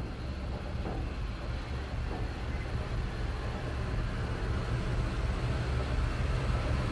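Low, steady rumble of a running motor vehicle engine, slowly growing louder.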